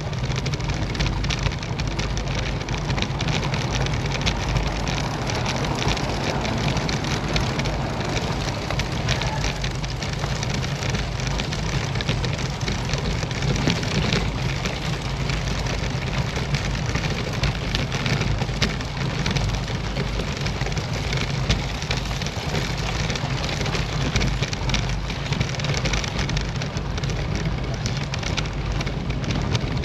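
Road bike rattling hard over cobblestones: a dense, steady clatter of the frame, wheels and bars, with rushing wind noise.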